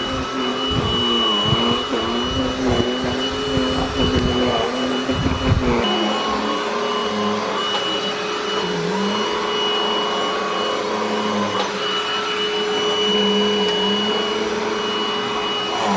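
Deerma VC20 Plus cordless handheld vacuum cleaner running on its faster power setting: a steady motor hum with a thin high whine. Low thumps come through for about the first six seconds, after which the running steadies, its pitch dipping briefly now and then.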